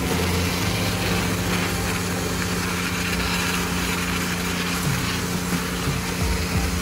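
Self-service car wash high-pressure pump running with a steady hum under the hiss of spraying foam.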